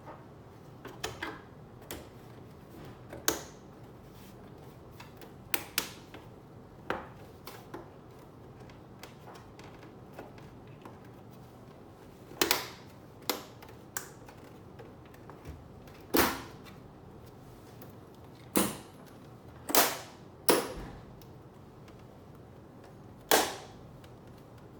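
Irregular sharp clicks and knocks, some with a short ring, from hands handling computer parts and tools on a bench, about fifteen in all, the loudest in the second half.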